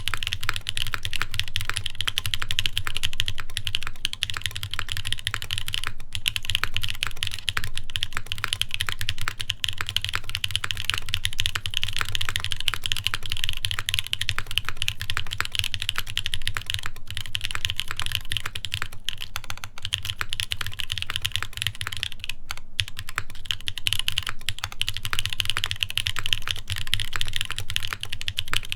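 Continuous fast typing on a custom mechanical keyboard (Iron180 with lubed Epsilon linear switches, carbon fibre plate, GMK keycaps), a dense stream of keystroke clacks with brief pauses now and then.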